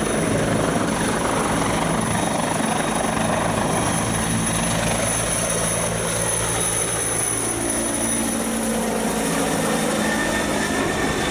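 Firefighting helicopter's rotor and turbine engine running steadily as it hovers low and flies with a water bucket slung beneath on a long line.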